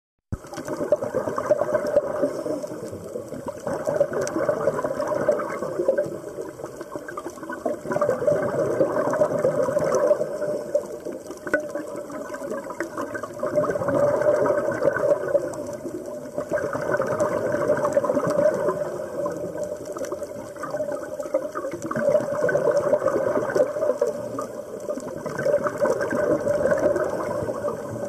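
Underwater gurgling and bubbling of a scuba diver's breathing through a regulator, swelling and easing every three to four seconds.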